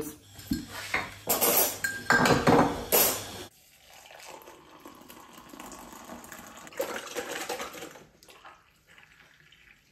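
Kitchenware clattering, then water poured from a small stainless steel pot into a ceramic mug, and milk poured in from a carton near the end.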